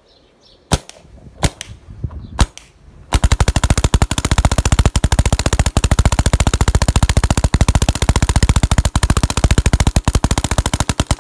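Angel A1 electronic paintball marker firing: three single shots in the first few seconds, then a long string of rapid, evenly spaced shots.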